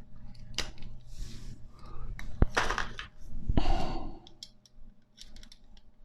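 Bicycle spokes clicking and rattling against each other and the hub as a wheel is laced by hand, with scattered sharp ticks and a couple of louder knocks, plus a few longer rustling bursts in the middle.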